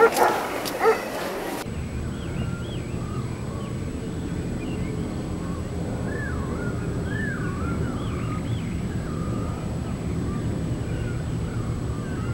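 Dog barking for about a second and a half, then an abrupt cut to a steady low rumble with scattered bird chirps and warbling calls over it.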